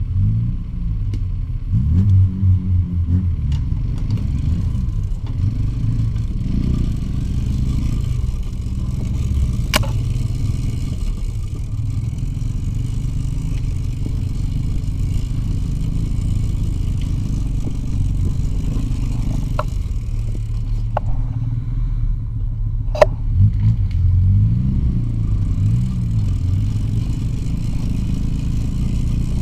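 Soviet two-stroke motorcycle engine running steadily, revving up and down near the start and again about three-quarters of the way through. Four sharp knocks cut across it, the loudest just before the second revving.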